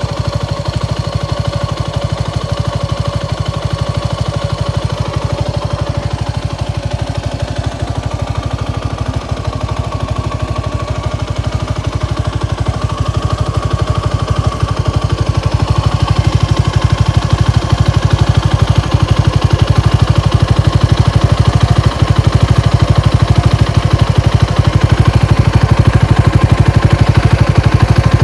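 Suzuki Gixxer SF250's single-cylinder engine running through a Yoshimura GP-MAGNUM105 Cyclone full exhaust, a steady, rapid, even exhaust pulse that grows gradually louder over the second half.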